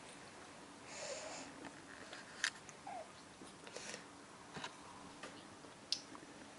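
Five-week-old kitten suckling milk from a feeding bottle's rubber nipple: faint wet sucking and smacking, with two sharper clicks, one about two and a half seconds in and one near the end.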